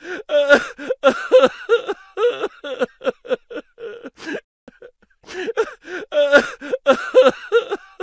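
A dubbed-in clip of a person's voice making short, rapid syllables with swooping pitch, the same run seemingly starting over about six seconds in.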